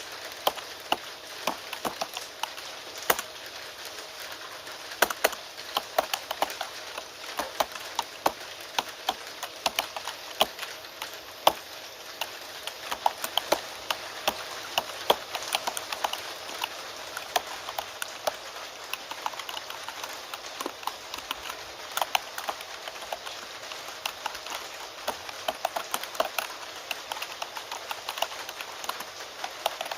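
Computer keyboard typing: a steady stream of quick, irregular keystroke clicks over an even hiss of steady rain.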